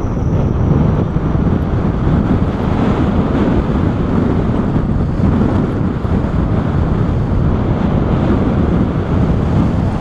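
Wind rushing over an action camera's microphone during a tandem paraglider flight: a steady, loud rumble of airflow.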